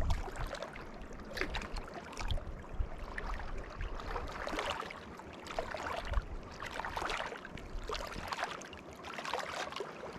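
Water lapping and gurgling softly at a lakeshore, with scattered light clicks and low rumbles.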